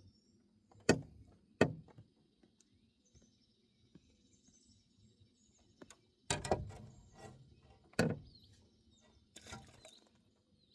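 A handful of sharp knocks and thumps from handling a fishing rod, line and a just-caught bream in a small boat, the loudest cluster about six seconds in. Faint bird chirps can be heard behind.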